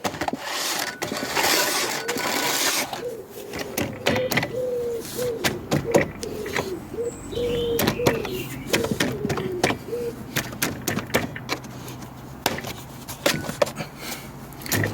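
Sanding belt being pushed onto the rollers of a Clarke CS6-9C belt sander by hand: rubbing for the first few seconds, then many light clicks and knocks of handling. Through the middle a wavering, stop-start mid-pitched tone sounds for several seconds.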